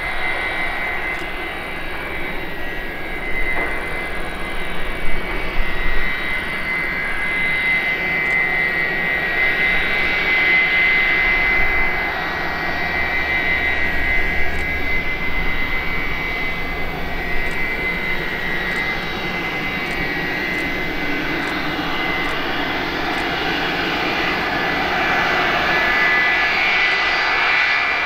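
A McDonnell Douglas MD-82 airliner's two rear-mounted Pratt & Whitney JT8D turbofans running at low taxi power as the jet rolls slowly onto the runway. The sound is a steady high-pitched whine over a rushing noise, growing a little louder near the end.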